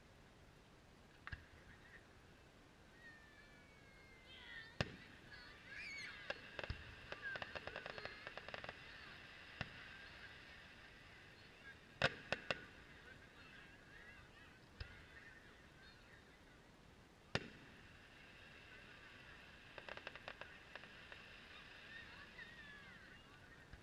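Distant aerial fireworks: single bangs a few seconds apart, the loudest a close pair about halfway through, with a run of rapid crackling about a third of the way in and again near the end. A steady high-pitched chorus runs underneath.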